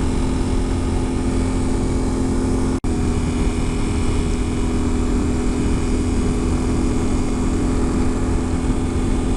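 Yamaha Ténéré 700's parallel-twin engine running steadily at cruising speed, heard from the rider's position under a steady rush of wind and road noise. The sound cuts out for a split second nearly three seconds in.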